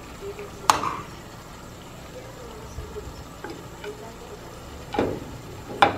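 Serving spoon clinking against the cookware three times while stewed chicken is dished onto a plate: once about a second in, then twice close together near the end.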